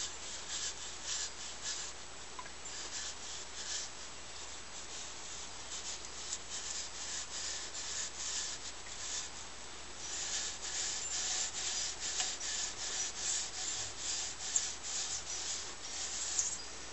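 Coarse steel wool scrubbed back and forth over an aluminium Triumph T120 motorcycle piston, a scratchy rubbing of repeated strokes that buffs the carbon off after oven cleaner. The strokes come quicker and louder from about ten seconds in, around two a second.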